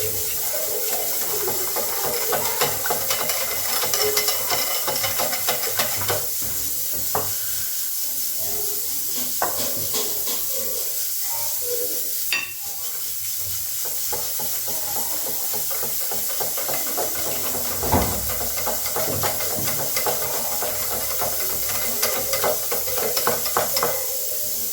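Cake batter being stirred by hand in a bowl as flour is mixed in, with many light clicks and scrapes of the utensil against the bowl over a steady hiss.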